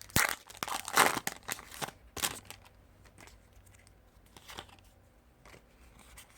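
Foil booster pack wrapper of a Pokémon card pack crinkling and tearing as it is opened, in a run of sharp crackles over the first two seconds or so, then a few faint rustles.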